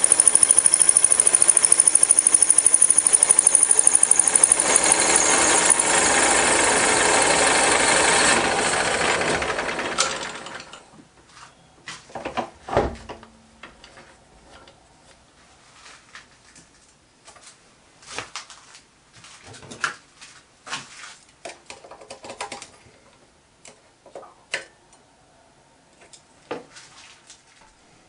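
Metal lathe running, turning the outside diameter of a cast flywheel, then running down and stopping about ten seconds in. After that come scattered clicks and knocks as the workpiece and tooling are handled, with one heavier knock a couple of seconds after the stop.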